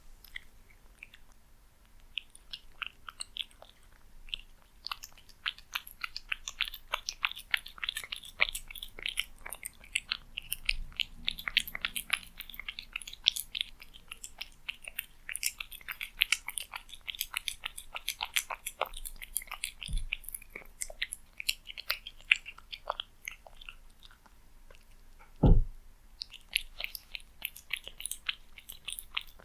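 A cat chewing and lapping at cat food close to the microphone: a rapid run of small sharp wet clicks that starts thinly and grows dense. A soft thump comes about twenty seconds in and a louder thump a few seconds later.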